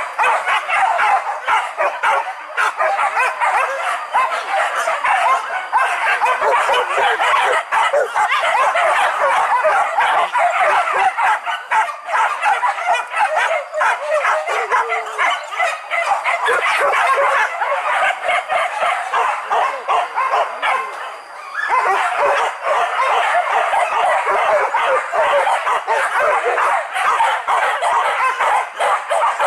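A pack of leashed boar-hunting dogs barking and yelping all together without a break, many dogs overlapping, with a brief lull about two-thirds of the way through.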